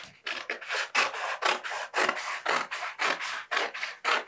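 Paperhanging shears cutting along a sharp fold in a length of wallpaper, a quick run of crisp snips, about three or four a second.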